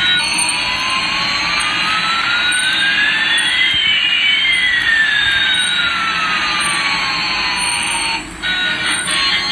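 Electronic jet-engine sound effect: a steady rushing hiss with two whistling tones, one rising and one falling, that cross midway. It cuts off about eight seconds in.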